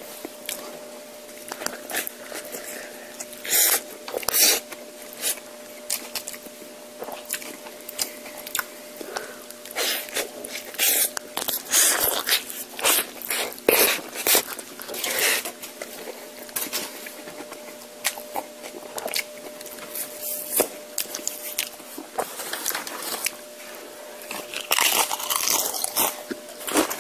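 Close-miked eating: irregular bites, crunching and chewing of Chipotle food, with a faint steady hum underneath.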